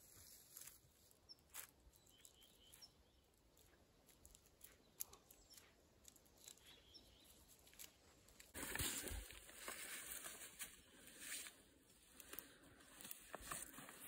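Near silence: faint forest ambience with scattered small clicks and snaps. The background noise rises abruptly about eight and a half seconds in.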